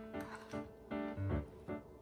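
Background music: a light melody of short pitched notes in a steady rhythm, about two or three a second.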